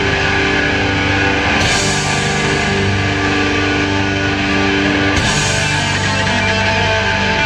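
Heavy metal band playing live: loud electric guitars holding long sustained chords over bass and drums, the chord changing about a second and a half in and again about five seconds in.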